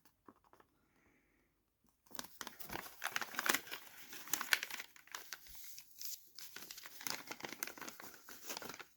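Paper and plastic packaging crinkling and rustling as it is handled, starting after about two seconds of near silence.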